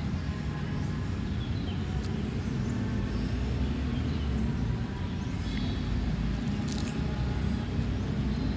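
Steady low rumble of road traffic, with a few faint clicks and small high chirps over it.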